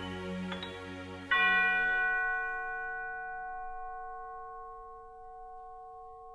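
Closing bars of soft instrumental music. A little over a second in, a bright bell-like chord is struck and rings on, fading slowly as the backing and bass die away.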